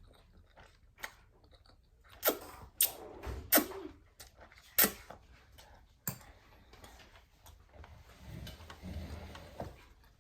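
A run of sharp clicks and cracks from eating and handling food, five loud ones between about two and five seconds in, then softer scattered handling noises.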